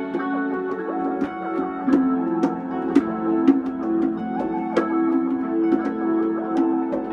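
Live instrumental music: a keyboard holding steady notes, with plucked notes and sharp clicks over it.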